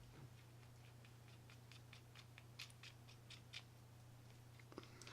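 Faint, scattered small clicks of a baitcasting reel's metal parts being handled as its drag nut is worked off the shaft, over a steady low hum.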